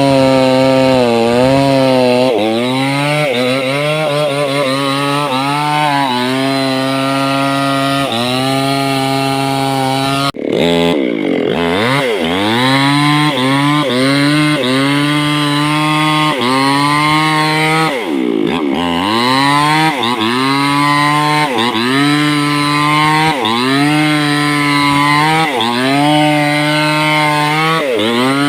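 Small two-stroke chainsaw cutting through hardwood, its engine pitch dipping under load and recovering about every second and a half. Twice, about a third and two-thirds of the way through, the engine drops sharply and revs back up.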